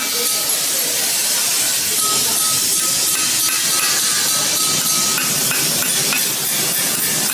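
Hammer tapping a small steel chasing punch against a cast brass figurine held in a vise, giving short, light metallic clinks at an uneven pace. A loud, steady hiss runs underneath.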